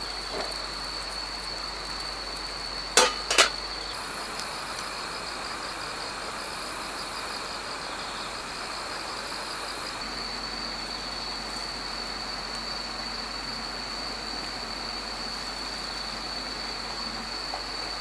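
Autumn night insects, crickets, trilling steadily in one high unbroken note, with a second insect chirping in quick even pulses for about six seconds in the middle. Two sharp clicks half a second apart about three seconds in are the loudest sounds.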